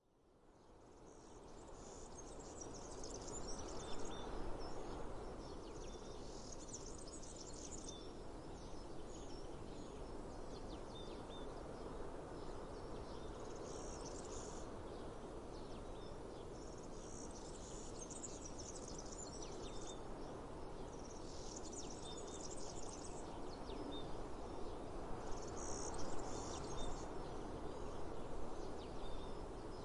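Outdoor nature ambience: a steady hiss of breeze fades in over the first few seconds. Over it, high chirping and trilling of birds and insects comes in short bursts every few seconds.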